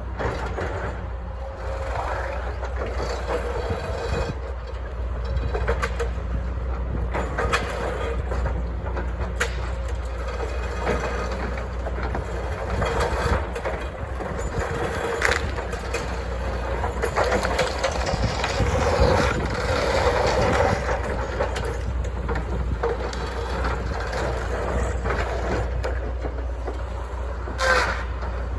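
Stroke-boom delimber at work: a steady low diesel engine drone under irregular metal clanks and knocks, with a short squeal near the end.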